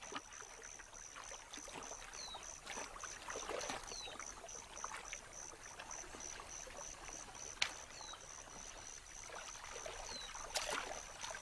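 Shallow water splashing and trickling as wood storks and jabirus probe and dabble with their bills for fish. Behind it runs a steady, high, rapidly pulsing chirp, with a short falling chirp every couple of seconds and one sharp tick past the middle.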